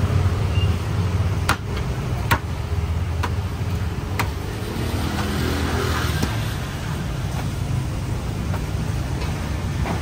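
Steady low rumble of street traffic. A few sharp knocks come in the first half.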